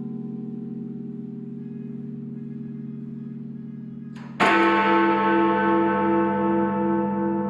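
Big Ben, the great bell of the Westminster clock tower, ringing. An earlier stroke is still fading when a new loud stroke lands about four and a half seconds in and rings on with a slowly pulsing hum.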